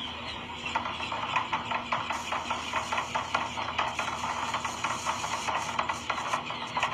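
Motorized baby-burping machine running: a steady motor hum under rapid, continuous mechanical clicking and rattling, which grows louder about a second in.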